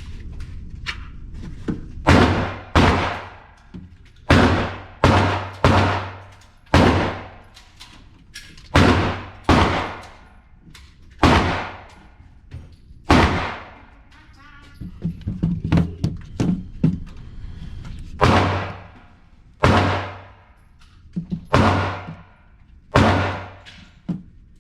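Pistol shots at a range, about sixteen in all, fired singly and in quick pairs at an uneven pace, each with a ringing echo that dies away over a second or so.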